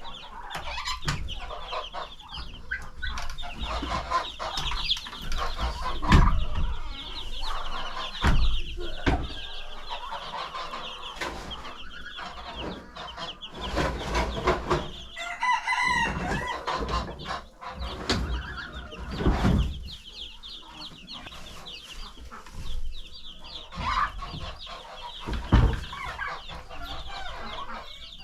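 A brooder of two-day-old Cornish Cross meat chicks peeping steadily in many short high chirps. Knocks and handling thumps break in now and then.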